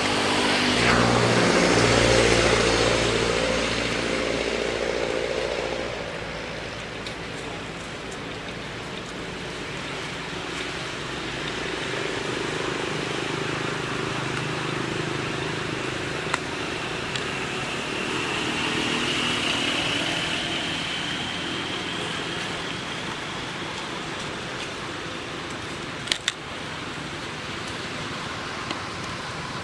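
A motor engine hum, loudest about two seconds in and fading out by about six seconds, over a steady outdoor background hiss. Two sharp clicks come near the end.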